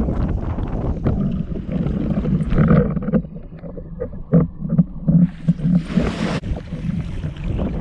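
Wind buffeting the microphone over water moving around a windfoil board. About three seconds in the wind noise drops, leaving a run of short low thumps and then a brief rushing hiss.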